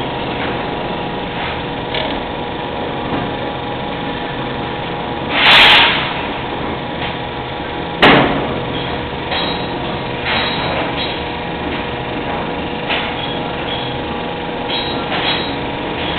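A 16 mm spring coiling machine running steadily as it winds thick wire into a large helical spring: a constant motor hum with scattered light clanks and ticks. A short burst of hiss comes about five seconds in, and a single sharp knock about eight seconds in.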